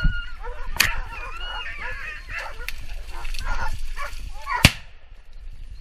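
A pack of hunting dogs barks and yelps in pursuit of a wild boar. Two sharp cracks cut through, one about a second in and a louder one shortly before the end.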